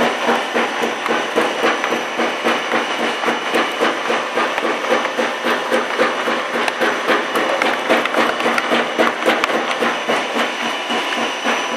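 Snack stick production machine running with a steady, rhythmic clatter that pulses roughly twice a second, with many sharp clicks of dry stick snacks dropping into a cardboard box.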